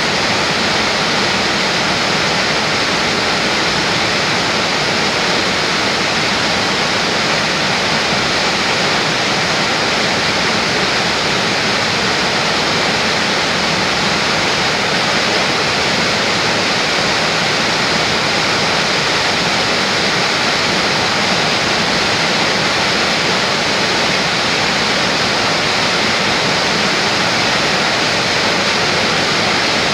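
Loud, steady rush of white water tumbling over rocks in a small waterfall, an even unbroken hiss with no changes.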